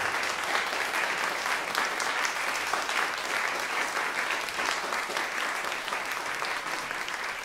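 Audience applauding steadily, with individual hand claps distinct in the sound.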